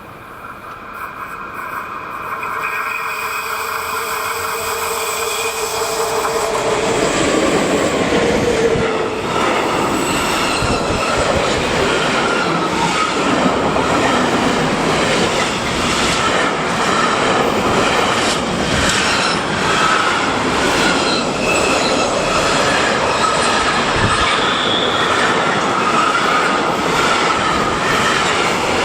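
An electric freight train comes closer over the first several seconds and then passes loudly and steadily, with rapid wheel clicks over the rail joints and a steady wheel squeal.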